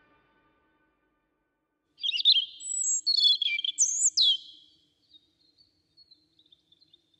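A songbird singing a quick phrase of varied, high warbling notes with fast pitch glides, starting about two seconds in and lasting roughly three seconds, followed by a few faint high notes.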